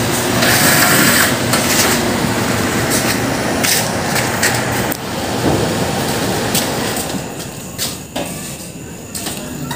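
Metal knocks, scrapes and rattles as the sheet-metal casing of an air conditioner's outdoor unit is taken apart by hand, over a steady low machine hum that fades about halfway through. The knocks grow sparser and quieter near the end.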